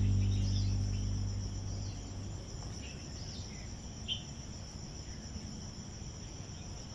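Background guitar music fades out over the first couple of seconds. It leaves a steady high insect drone of crickets or cicadas, with a few short chirps in the middle.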